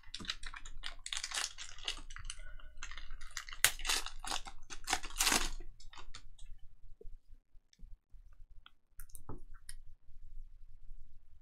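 Foil trading-card pack wrapper crinkling and tearing open, dense and crackly for about the first six seconds. Then the cards are squared and thumbed through, with scattered light clicks and rustles.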